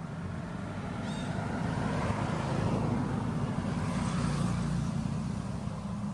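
A motor vehicle passing by, its engine hum and road noise building to a peak a few seconds in and then fading.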